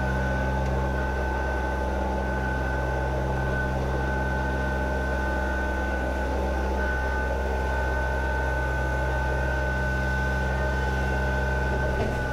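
Kubota BX subcompact tractor's three-cylinder diesel running steadily under load while it drives a PTO rear tiller through the soil. There is a steady high-pitched tone over the engine hum.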